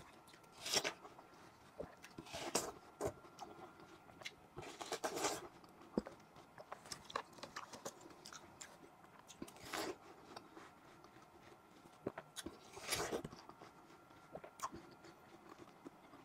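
Close-up biting and chewing of watermelon slices, juicy crunches coming in separate bursts every few seconds.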